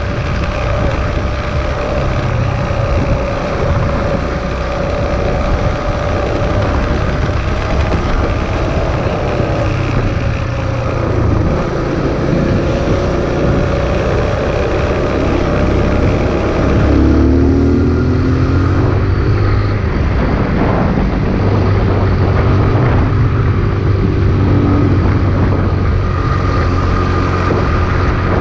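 Kawasaki Z125's 125 cc single-cylinder engine running steadily as the small motorcycle rides along a dirt track, under a heavy low rumble of wind on the microphone. The engine note shifts in pitch a little over halfway through.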